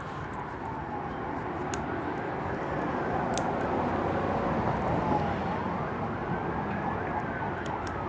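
Emergency-vehicle siren wailing, its pitch slowly rising and falling over several seconds, over a steady background rumble, with a few faint sharp clicks.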